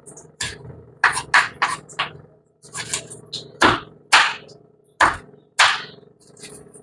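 An irregular series of sharp knocks and snaps, a few a second, some with a short rasping tail, over a faint steady hum.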